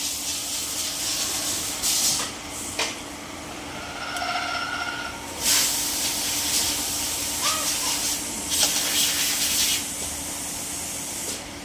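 Machine tool running with a steady hum, with several loud hissing surges over it, about two, five and a half, and eight to ten seconds in.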